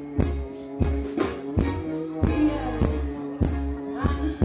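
Live band music: a steady drum beat at about two to three hits a second over bass and held keyboard-like chords.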